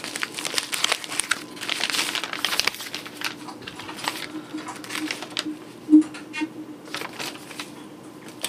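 White paper wrapping crinkling and rustling in irregular handfuls as it is pulled open by hand, with a louder crackle about six seconds in.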